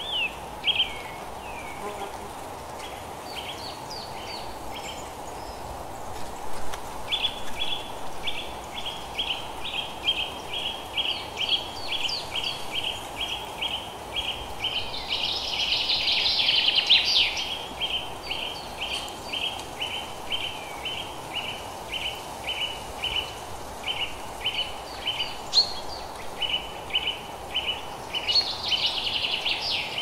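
Natural outdoor ambience: a bird repeating a short chirp about twice a second, with a louder burst of song about halfway through, over a steady faint background noise.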